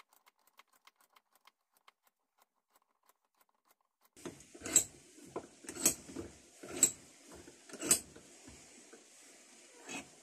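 A vintage Record bench vise's steel main screw being wound out of its jaw by hand. Faint light ticks, then metal clunks about once a second for several seconds as the screw and its handle turn, with two softer clunks near the end.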